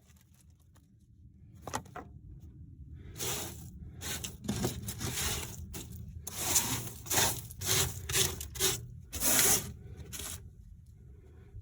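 Irregular bursts of scraping, rubbing and rustling as things are pulled and dragged out of a car trunk, loudest in the second half.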